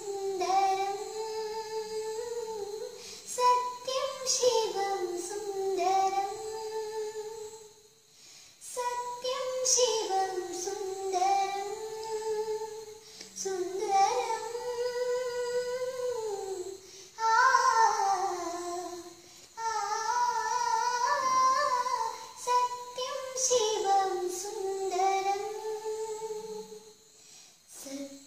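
A girl singing solo in a high voice: a slow melody of long held notes that bend up and down, with brief pauses for breath between phrases.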